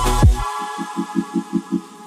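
Background electronic music: deep bass hits that fall in pitch, giving way about half a second in to a fast, even pulsing beat of about five pulses a second over held tones.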